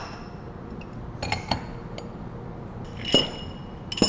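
Sharp metallic clinks and knocks as a threaded steel pipe and a pipe wrench are handled against the metal valve stand and bench during the pipe's removal. Several separate strikes, the loudest about three seconds in, with a brief metallic ring after it.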